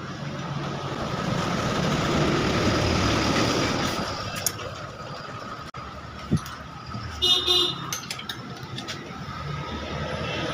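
Background road-traffic noise with a brief vehicle horn toot about seven seconds in, and a few scattered clicks.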